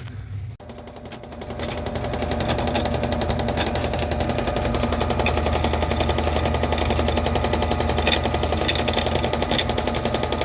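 Heavy-duty washing machine running a drain-and-spin cycle: a fast mechanical rattle starts about half a second in and builds to a steady level within a couple of seconds.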